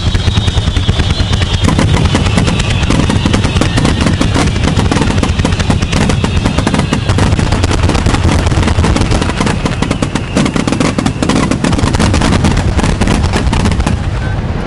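Aerial fireworks bursting in a dense, rapid barrage of bangs and crackles, many shots a second, thinning out near the end.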